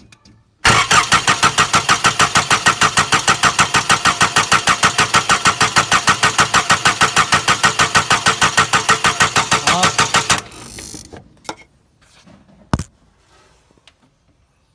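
Starter motor cranking the Nissan Patrol's ZD30 four-cylinder turbodiesel for about ten seconds, an even pulsing of about six compression strokes a second, then stopping abruptly without the engine catching. It is a no-start that the owner traced to a tiny leak in the fuel lines. A single sharp click follows a couple of seconds later.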